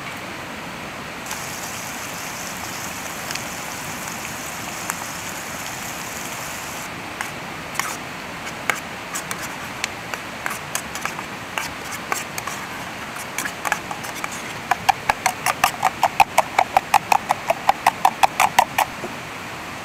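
A spork clinking and scraping against the inside of an aluminium camping pot. Scattered clicks give way, in the last four seconds, to a fast even run of about five clinks a second as eggs are beaten in the pot. A steady high hiss runs through the first few seconds.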